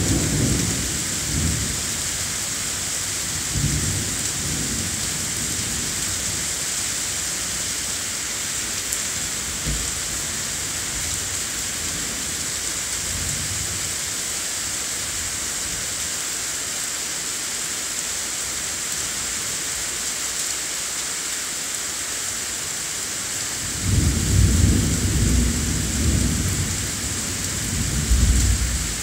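Thunderstorm: steady rain hissing, with rumbles of thunder. There are short rumbles near the start and a few seconds in, fainter ones in the middle, and a long, louder rolling peal over the last five seconds.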